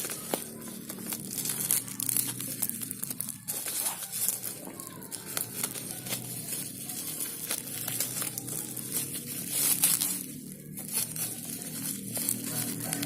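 Parcel packaging being unwrapped by hand, with irregular crinkling, crackling and tearing.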